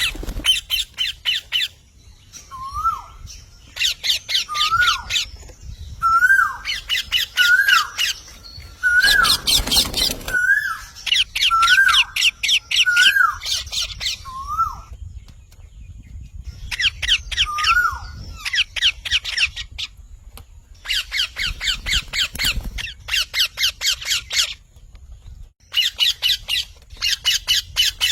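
A parrot calling over and over: bursts of rapid harsh squawking alternate with short rising-then-falling whistled notes, about one a second, broken by a few short pauses. A brief rush of noise comes about nine seconds in.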